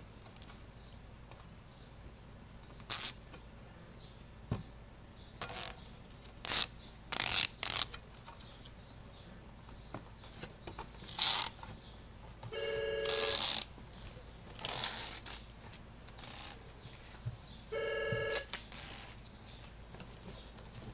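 Plastic release liner being peeled off double-sided adhesive tape in short, sharp rips, with hands pressing and smoothing a rubber step tread down onto an aluminium running board. A telephone rings twice, about five seconds apart, in the second half.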